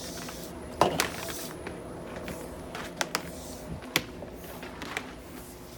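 Scattered sharp clicks and knocks as a vacuum's power cord is handled and untangled, with the camera being handled too, over a steady low background hum.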